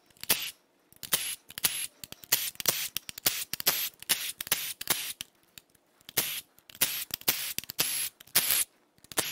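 Milwaukee Fuel cordless impact wrench hammering in many short bursts, a few per second, as it breaks loose and spins out the perimeter bolts of a BMW N26 engine's bedplate.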